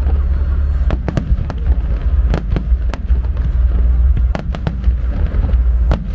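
Aerial fireworks display: a continuous deep rumble of shell bursts, broken by many sharp cracks and pops at an irregular pace.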